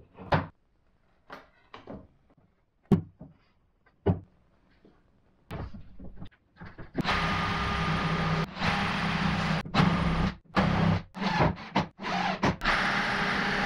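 A few scattered clicks and knocks of clamps being set, then a DeWalt cordless drill running from about halfway through, drilling holes into the acrylic fence panel with several short stops and restarts.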